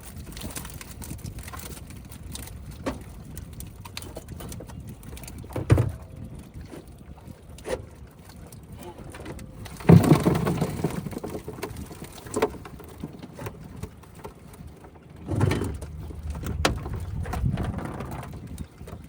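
A bottom net full of catfish being hauled into a boat: irregular knocks and splashes, the loudest about ten seconds in and another cluster near the end.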